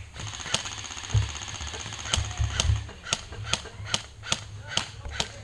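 Airsoft guns firing: a continuous rattle of rapid fire for about the first two seconds, then evenly spaced single shots, about two or three a second.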